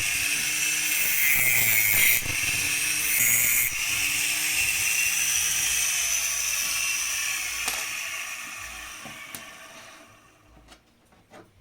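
Homemade mini grinder built on a 12 V 775 DC motor with an angle-grinder adapter, running with a steady whine. Its pitch dips briefly a few times during bursts of harsh hiss. It then winds down and stops about ten seconds in, followed by a few light clicks.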